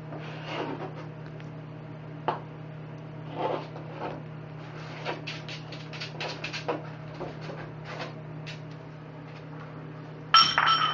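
A kitten's plastic cone collar scraping, rubbing and tapping against a wall and the floor as it moves about. About ten and a half seconds in comes a loud clatter with a brief ringing as a food bowl is knocked over, spilling food and water.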